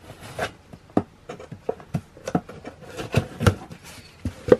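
Sneaker packaging being handled: rustling and rubbing with a string of light knocks and taps, the sharpest knock near the end.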